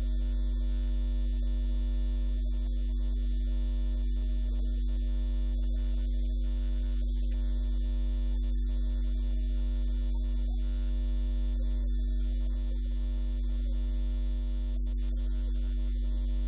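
Steady electrical mains hum: a strong low drone with fainter steady tones above it and no speech coming through.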